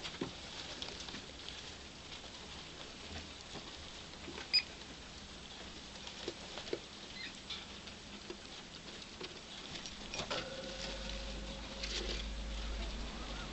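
Pet fancy rats feeding from a food bowl and moving about in wood-shaving bedding: a run of small clicks, taps and rustles, with one sharper click about four and a half seconds in. A steady low hum comes in about ten seconds in.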